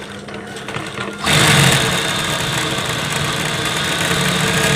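Typical GC6-28-1 high-speed industrial lockstitch sewing machine starting up a little over a second in and then running steadily with a hum and a high whine, driving its belt-driven bobbin winder to wind thread onto the bobbin.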